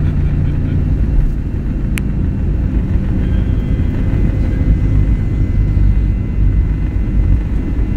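Jet airliner heard from inside the cabin as it rolls along the ground: a loud, steady low rumble of engines and wheels, with a faint high whine joining from about three seconds in. A single sharp click about two seconds in.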